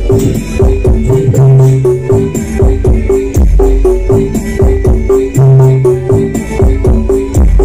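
Loud dance music from a large carnival sound system, with a heavy, deep bass beat, a repeating melodic figure and shaker-like percussion.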